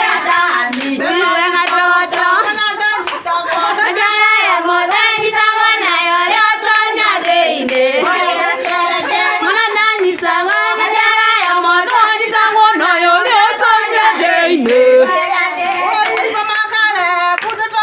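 Voices singing a lively song without pause, with hand clapping along throughout.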